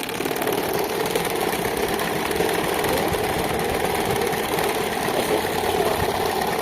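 Electric fan with a broken blade running at speed: a loud, steady mechanical hum.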